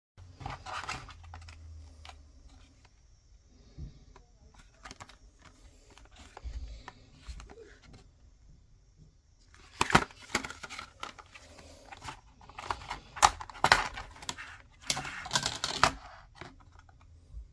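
Hard clear plastic clamshell packaging of a two-stick DDR5 RAM kit being handled and opened by hand: irregular plastic clicks and crinkling, sparse at first, then in dense clusters about ten seconds in and again over the last few seconds.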